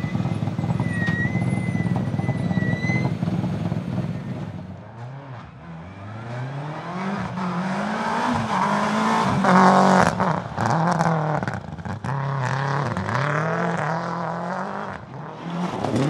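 Toyota Celica GT-4 ST165 Group A rally car's turbocharged four-cylinder engine, first running steadily at low revs, then from about five seconds in revving hard through the gears on gravel: repeated rising revs, each cut by a gearshift or a lift off the throttle, loudest around ten seconds in.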